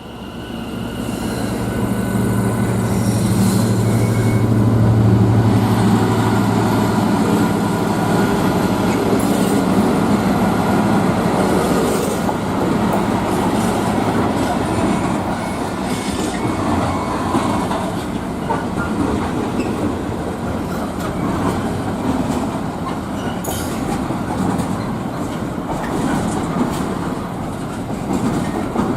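Freight train passing at speed: the locomotive's low drone comes in loud over the first few seconds, then a long run of wagons rattling and clattering over the rail joints, with some wheel squeal.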